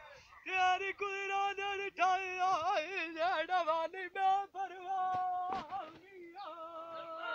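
A man singing a Punjabi dohra (dohray folk verse) unaccompanied, in a high voice that holds long notes, some steady and some wavering in ornaments, with short breaths between phrases.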